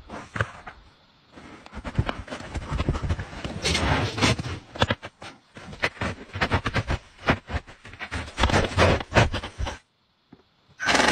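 Close, irregular scraping and knocking as a round plywood door is handled and pushed against packed snow while being fitted into a snow shelter's entrance. The scraping breaks off for about a second near the end, then starts again.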